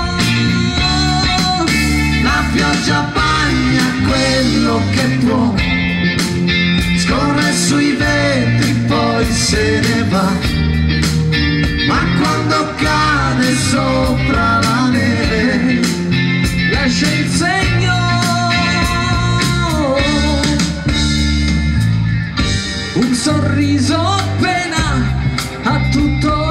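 Live band playing a pop-rock song through a PA, with drums, bass, keyboard and electric guitar.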